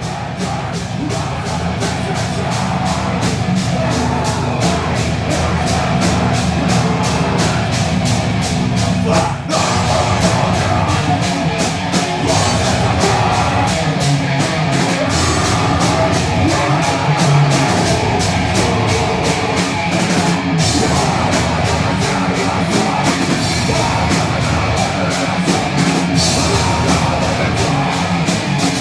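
Live heavy metal band playing loud and fast: distorted guitars, bass and a drum kit with rapid, even cymbal and drum hits, with harsh screamed vocals.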